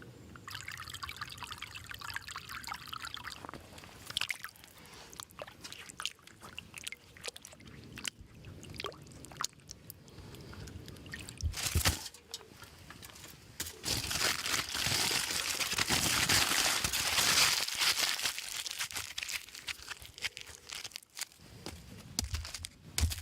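Liquid pouring and trickling, with scattered clicks and knocks; the loudest part is a longer stretch of about five seconds starting some 14 seconds in.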